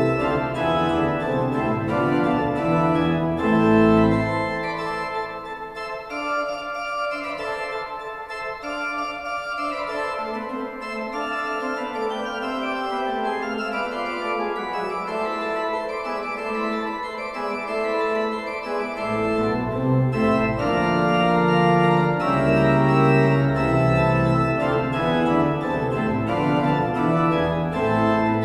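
Church organ playing slow, sustained chords. The low bass notes fall away a few seconds in and come back about two-thirds of the way through.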